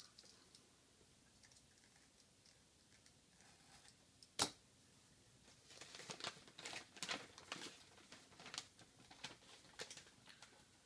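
Faint rustling and crinkling of newspaper as a wrapped drinks can is unwrapped by hand. There is one sharp click about four and a half seconds in, and a cluster of light crinkly ticks from about six to ten seconds.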